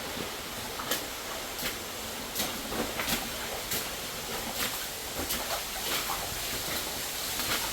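Water running and falling at the source of an underground waterfall in a mine, a steady hiss, with sharp clicks or splashes coming irregularly about every second.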